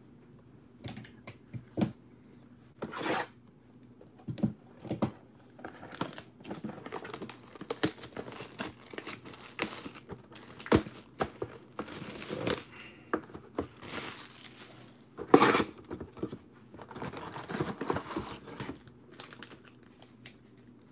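Plastic shrink wrap being torn and crumpled off a sealed trading card box by hand: irregular crinkling and crackling with a few sharper rips.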